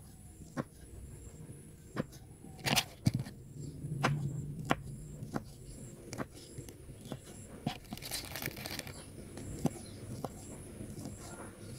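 Kitchen knife slicing through beef meatballs and striking a plastic cutting board, a sharp click with each cut at an uneven pace of one or two a second.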